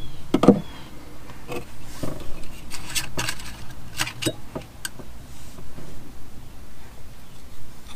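Clinks and scrapes of a small metal can of PVC pipe solvent being handled and its dauber cap unscrewed, a string of separate sharp clicks over the first several seconds, then quieter handling.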